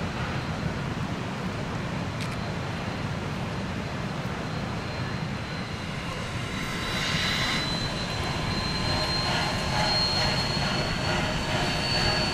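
Narrow-gauge train rolling along: a steady rumble and hiss, with a thin high-pitched squeal that comes in about halfway through and holds, creeping slightly up in pitch.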